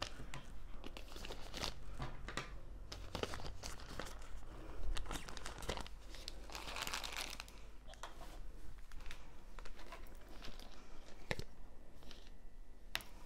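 Packaging crinkling and rustling with small clicks and taps as diamond-painting tools (tweezers, drill pen, wax) are packed back into their pouch, with a denser rustle about seven seconds in and a couple of sharper clicks near the end.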